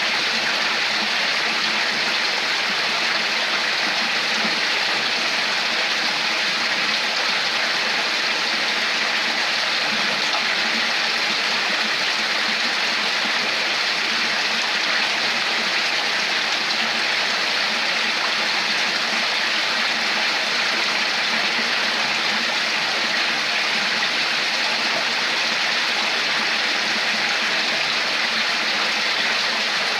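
Water flowing steadily in a stream, a constant rushing and babbling.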